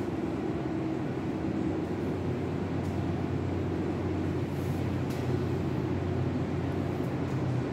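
Fire pump room machinery running with a steady, even low hum.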